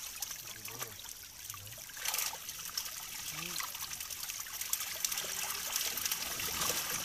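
Many fish thrashing at the water's surface, crowded together inside a gill net: a dense patter of small splashes that grows louder from about two seconds in.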